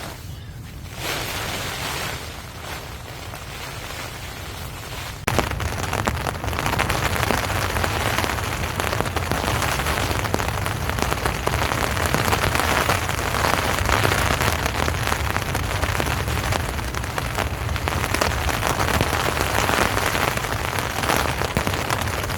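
Heavy rain falling, a steady hiss of drops that suddenly becomes louder and denser about five seconds in.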